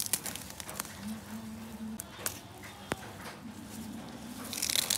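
Grass rustling and light clicks as a wire basket is handled and set down on the ground, with a louder burst of rustling near the end.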